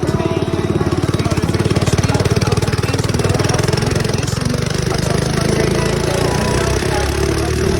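Mini bike's small engine running as it is ridden, with a rapid, even firing beat; the note smooths out about three seconds in.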